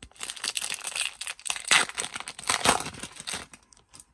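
Foil-lined trading card pack wrapper being torn open and crinkled by hand: a dense run of crackling and ripping, loudest in the middle, that dies away shortly before the end.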